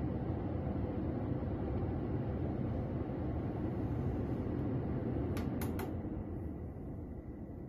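Smart Air Blast Mini air purifier's fan running at speed 3, a steady low rush of air. About five seconds in, three quick clicks come as its speed knob is turned, and the fan then starts to wind down and grow quieter.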